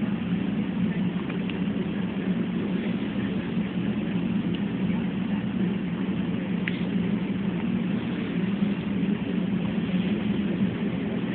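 Steady low hum of room background noise, with a few faint soft clicks.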